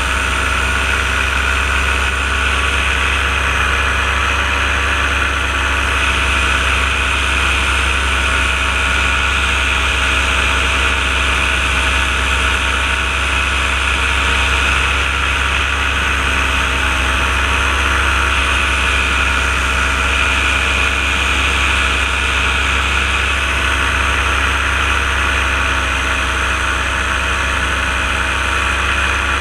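Paramotor engine running steadily at a constant throttle in flight, a loud even drone that neither rises nor falls.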